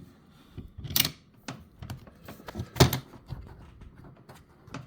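A few sharp plastic and metal clicks and knocks as the rail, with a metal caster bracket slid onto it, is pushed back into the side of a Milwaukee Packout rolling tool box. The loudest knock comes near the middle.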